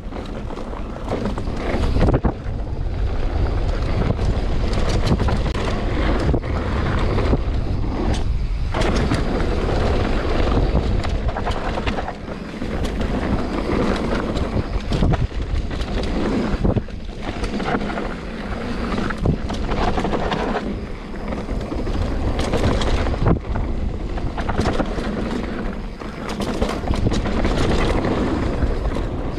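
Wind buffeting an action camera's microphone on a mountain bike riding fast down a dirt trail, with steady tyre rumble and frequent knocks and rattles as the bike goes over bumps.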